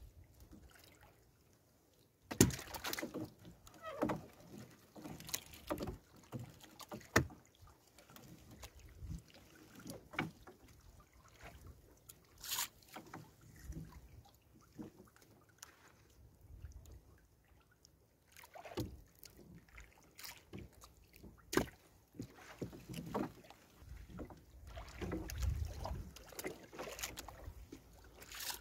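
A gill net being hauled in by hand over the side of a small boat: irregular knocks and clatter against the hull, with water sloshing and the mesh rustling. It starts about two seconds in with the sharpest knock, and the handling grows busier near the end.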